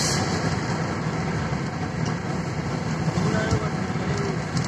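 Steady engine and road noise heard from inside a moving vehicle's cabin, a low, even rumble.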